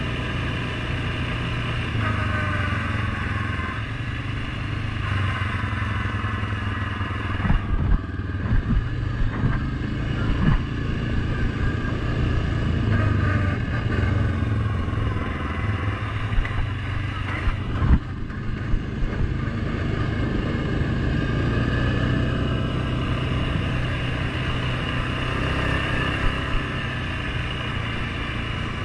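Suzuki KingQuad 750 ATV's single-cylinder four-stroke engine running steadily under way on a dirt road. Over a stretch in the middle come sharp knocks and rattles as the machine jolts over bumps.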